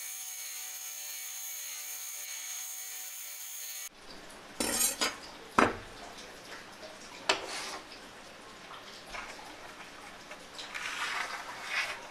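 Belt grinder running with recycled-plastic handle scales pressed against the belt, a steady hiss with a thin high whine that cuts off about four seconds in. Then a steel knife blade and handle scales are set down on a workbench with a few sharp clinks, and a brief rustle follows near the end.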